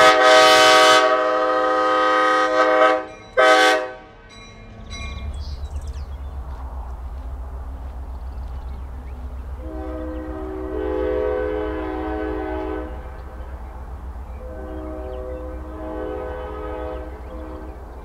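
Diesel locomotive's multi-chime air horn sounding a long blast and then a short one, followed by the steady low rumble of the diesel engine running. Two more long horn blasts come later, fainter.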